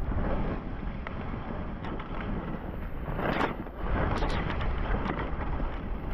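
Wind buffeting the microphone during a fast downhill run on snow, with the hiss and scrape of edges sliding and carving through the snow. The scraping swells loudest about three seconds in and again around four seconds.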